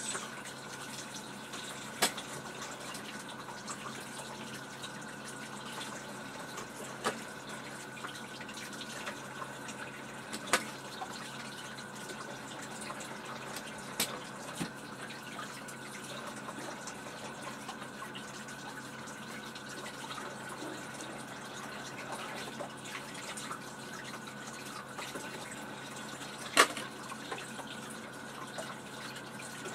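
Tap water running steadily as potatoes are rinsed, with a few sharp knocks, the loudest near the end.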